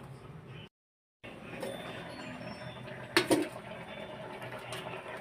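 A metal pot lid clinks sharply once against an aluminium cooking pot about three seconds in, over the steady low sound of soup simmering in the pot. The sound drops out briefly about a second in.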